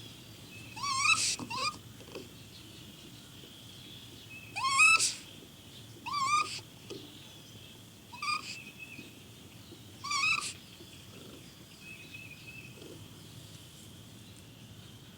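Caged raccoon crying: about six short, wavering whimpering cries, each rising and then falling in pitch, at uneven intervals over a steady faint high background tone.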